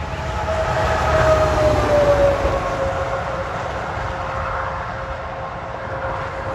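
A diesel semi truck pulling a grain hopper trailer goes past at highway speed. The engine drone and tyre noise swell to their loudest one to two seconds in. The engine's pitch drops as the truck passes, then the sound fades as it drives away.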